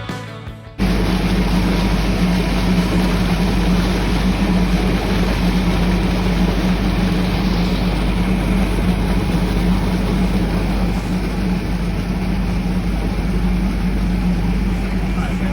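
Ship's engine running: a loud, steady drone with a strong low hum, starting abruptly about a second in.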